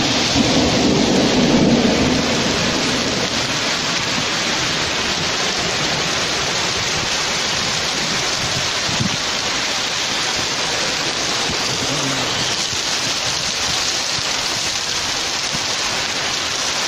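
Heavy rain pouring steadily on a wet street and pavement, with a low rumble of thunder fading out over the first two seconds or so.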